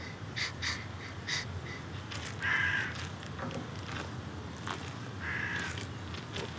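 Crows cawing: several separate harsh caws, short ones at first, with longer calls about two and a half and five and a half seconds in, over a low steady background rumble.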